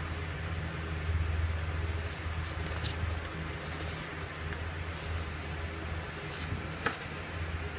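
Light rustling and small clicks of a power bank's packaging being handled, over a steady low hum, with one sharper click about seven seconds in.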